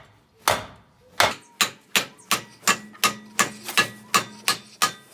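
A dead blow hammer strikes the tie rod end stud, capped with the old nut, about a dozen times at roughly three blows a second, to knock the tie rod end loose from the steering knuckle. A faint metallic ring lingers between the blows.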